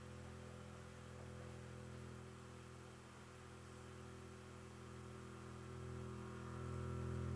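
A low instrumental drone: one low note held steady, swelling louder about six seconds in.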